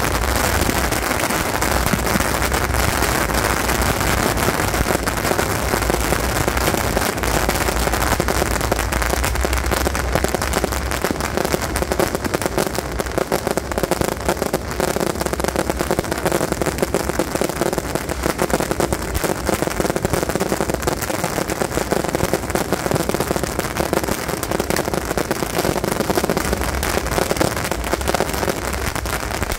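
Beehive rockets and fireworks going off in a dense, unbroken crackle of pops, with no break for the whole stretch.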